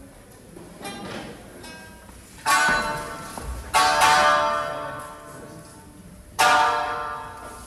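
Live plucked-string music: three loud struck notes, about two and a half, four and six and a half seconds in, each ringing out and fading, with quieter plucked notes between.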